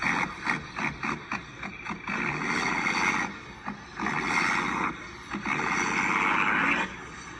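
Toy monster truck pulling a chain-hitched toy across concrete, in several bursts of rolling and scraping about a second long each.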